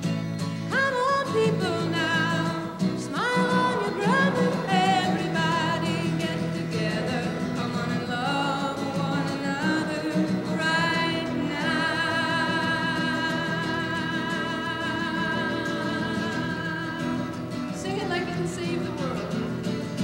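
A woman singing to her own strummed acoustic guitar, in the middle of the song there is a long note held with vibrato.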